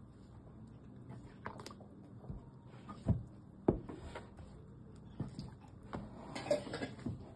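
Dough scraper mixing flour and water into a stiff dough in a bowl: quiet scraping with scattered knocks against the bowl, two sharper ones around three and three and a half seconds in.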